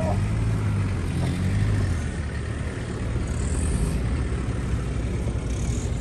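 Engines of off-road SUVs and pickup trucks running at low revs as the convoy moves slowly, a steady low hum.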